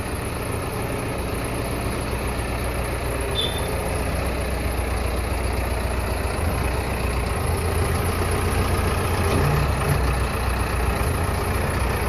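Bull SD 76 backhoe loader's diesel engine running as the machine drives, growing gradually louder as it comes closer.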